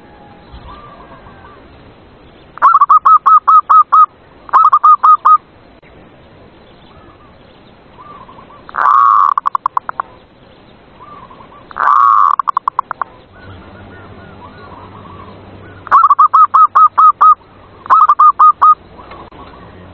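Zebra dove (perkutut) singing: quick runs of five to seven staccato coos, repeated in pairs, and twice a longer drawn-out coo that breaks into fast pulses.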